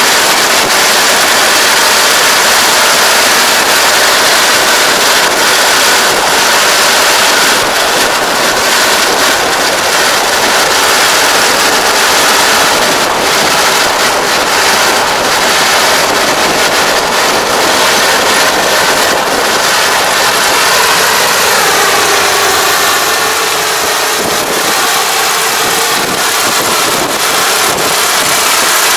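Kubota ER587 combine harvester's diesel engine and threshing machinery running under load while it cuts rice: a loud, steady mechanical din that eases a little near the end as the machine moves away.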